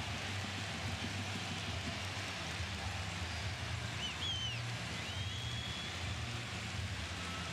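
Football stadium crowd noise, a steady wash from the stands, with a few short whistles that bend up and down in pitch about four to six seconds in.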